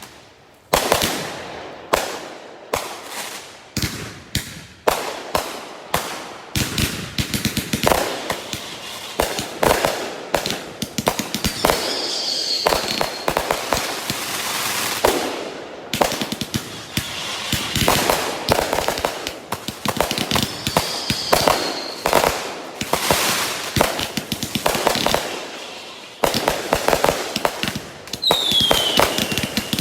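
Consumer fireworks finale: a dense, continuous barrage of cakes firing, with rapid launch thumps, bursting shells and crackle. Short falling whistles cut through three times.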